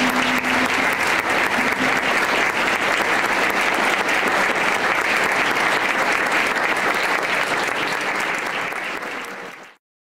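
Audience applauding, a dense stream of many hand claps that fades out near the end.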